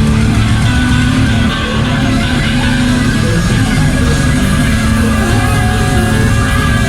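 Heavy metal band playing live and loud, with distorted electric guitar over a heavy low end.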